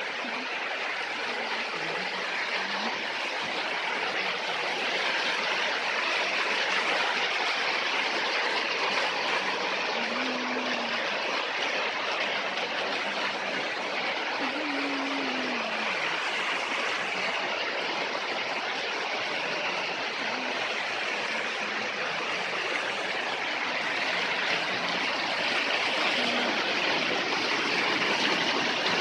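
Shallow woodland stream rushing and splashing over mossy rocks and small cascades, a steady rush that grows gradually louder as the camera nears a small waterfall.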